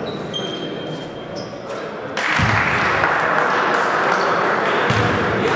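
Basketball bouncing with a few thuds on a gym floor. Crowd noise in the hall swells suddenly about two seconds in and stays up.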